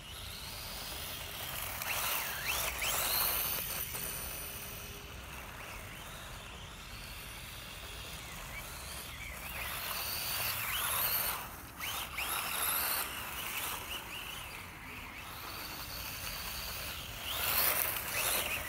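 ZD Racing Raptors BX-16 1/16-scale RC buggy driving on gritty ground, its brushless motor giving a high whine that rises and falls as it speeds up and slows, over the hiss of tyres on grit. The whine comes in three spells, about two seconds in, about ten seconds in and near the end, loudest as the buggy passes close by near the end.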